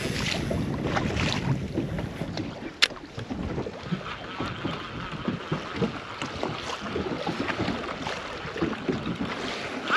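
Wind on the microphone and water slapping against a small boat's hull, with light irregular clicks from a conventional fishing reel being wound in. There is one sharp click about three seconds in.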